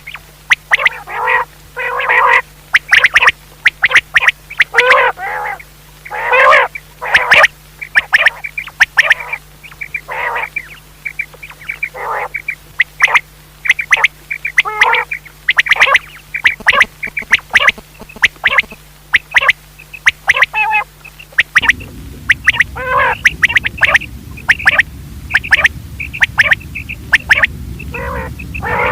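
Common quail calling: short, sharp notes repeated over and over in quick clusters. A faint low hum lies underneath, and a louder low rumble joins about three-quarters of the way through.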